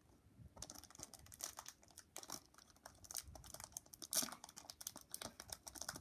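Foil wrapper of a Pokémon trading-card booster pack crinkling and crackling as hands work it open, a dense run of small crackles starting about half a second in.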